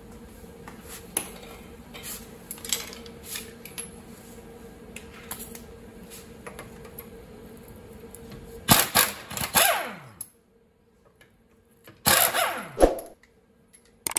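Impact wrench loosening a car wheel's lug nuts: two short bursts of hammering about three seconds apart, each falling in pitch as it winds down. Before them, light clicks and knocks of handling.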